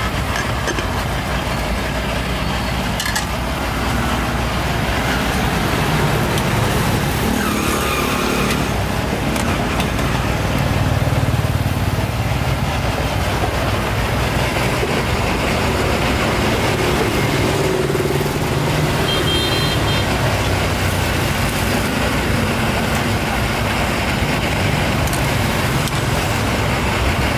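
Steady outdoor street noise dominated by the low rumble of road traffic running by.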